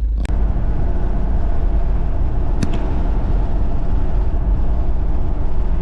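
Toyota 1KZ-TE 3.0-litre four-cylinder turbo diesel running steadily on the warm-up drive, a dense low rumble with road noise. There are two sharp clicks, one near the start and one about two and a half seconds in.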